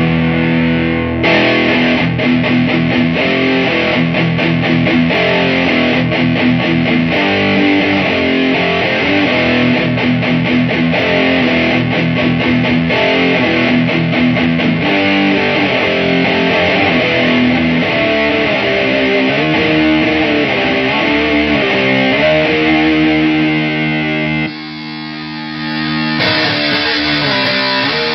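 Electric guitar played through a fuzz pedal driven by an overdrive into a solid-state guitar amp, heavily distorted riffs and chords played without a break. The playing drops in level briefly about three-quarters of the way through, then carries on.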